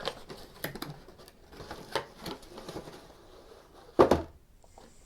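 Cardboard box and packaging being handled: scattered taps, rustles and clicks, with one louder knock about four seconds in.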